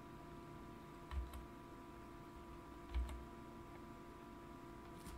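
Computer keyboard keys and mouse buttons clicking a few separate times, two quick taps close together, then single taps about two seconds apart, over a faint steady hum.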